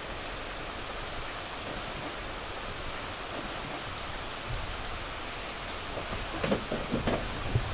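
Steady rain falling, an even hiss of drops. A few soft knocks and thumps come near the end.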